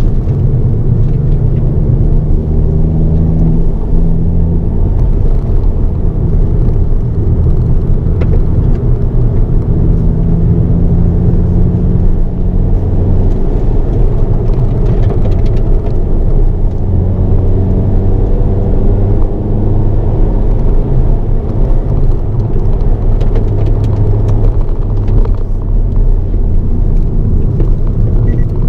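Hyundai Avante N (Elantra N) 2.0-litre turbocharged four-cylinder engine heard from inside the cabin while being driven hard on a circuit, its pitch rising and falling repeatedly as it revs up and drops back, over a steady road rumble.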